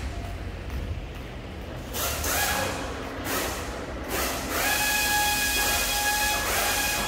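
A machine whine with hissing: a whine rises in pitch about two seconds in, then holds a steady high tone for about two seconds over a continuous hiss. Short bursts of hiss come before it.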